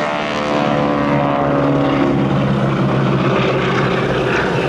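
Boeing Stearman biplane's radial engine and propeller droning in a flypast. The pitch drops over the first couple of seconds as it passes, then holds steady.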